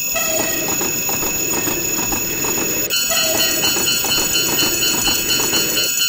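Train passing along the rails, a steady rumble with a regular clatter of wheels, while a railroad crossing bell rings. A second crossing bell joins about three seconds in.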